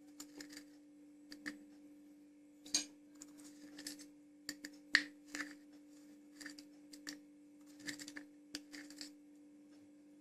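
A metal spoon clinking and scraping lightly against a small saucepan in irregular taps, as two teaspoons of salt are added to warm sweetened vinegar and stirred in.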